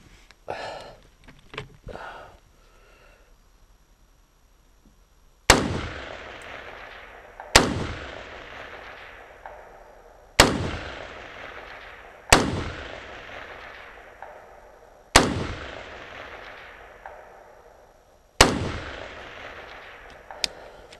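Six shots from an AR-15-style rifle fired from inside a wooden shooting booth, two to three seconds apart, each followed by a long fading echo. A few light clicks and knocks of rifle handling come in the first few seconds.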